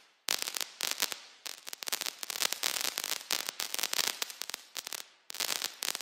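Rapid crackling and popping in several spells, each fading away before the next starts, then stopping abruptly at the end.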